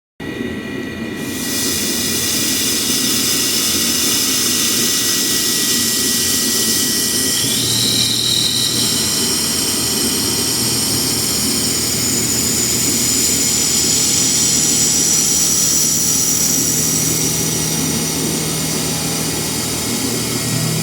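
Milling machine running steadily as it machines an aircraft canopy latch handle: a high whine over a steady rush of noise, starting abruptly, with a low hum joining partway through.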